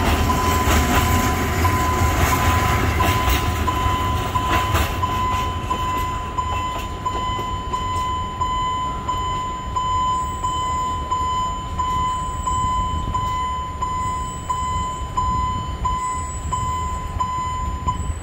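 An Alishan Forest Railway train passing over a level crossing, rumbling and clattering, then fading over the second half. Throughout, the crossing's electronic warning signal keeps sounding a steady ringing tone that pulses about twice a second.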